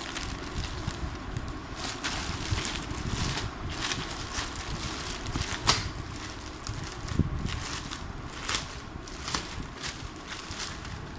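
Backpack and its plastic packaging being handled: irregular rustling and crackling with scattered sharp clicks, the sharpest about halfway through, over a low rumble.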